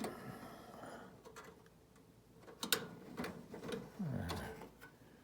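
Scattered small clicks and handling noises from hands and pliers working a spade connector on the space heater's internal wiring, with one sharper click about two and a half seconds in.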